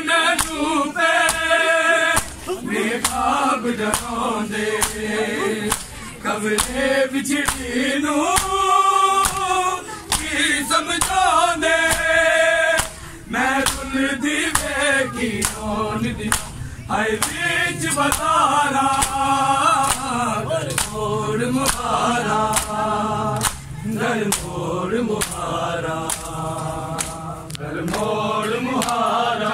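Male voices chanting a noha, a Muharram lament, in chorus, with repeated sharp slaps of hands on bare chests (matam) keeping the beat.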